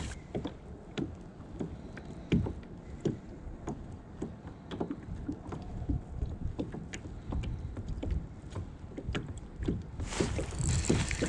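Small waves lapping and slapping against plastic kayak hulls, with many scattered light knocks and a low rumble of wind on the microphone. A louder rush of rustling noise comes near the end.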